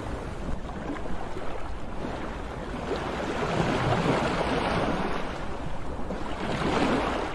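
Sea waves washing in and drawing back, a steady rush that swells and eases, building in the middle and again near the end, over a low rumble.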